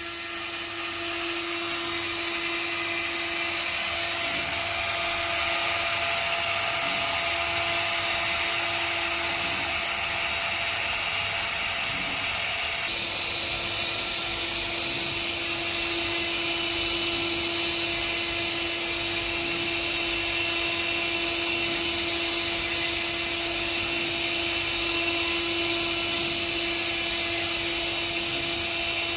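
Trim-router spindle of a desktop CNC engraving machine running steadily at speed with a constant high whine, the machine carrying out a job it has been sent. The sound shifts a little about halfway through.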